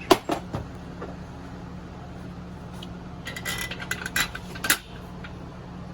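Knocks and metallic clinks of shed-kit parts and hardware being handled during assembly: a couple of sharp knocks at the start, then a quick run of clinks about three to five seconds in.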